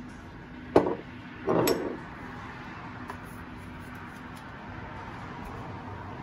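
A sharp knock and then a short scrape as a measuring spoon and spice jar are handled and set down beside a steel mixing bowl, followed by a steady faint kitchen hum.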